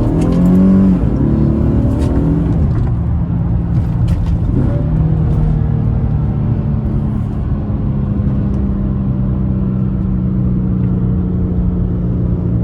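Car engine under way, revving up and easing off near the start and again about four and a half seconds in, then running at a steady cruise.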